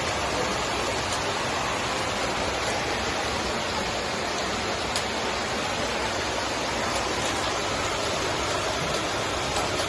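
Steady rushing of water, an even noise that holds level throughout.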